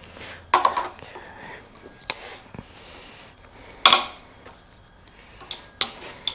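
Metal tools and small metal parts clinking and knocking as they are handled while a motorcycle throttle cable is adjusted: four sharp ringing clinks about a second and a half apart, with lighter ticks between.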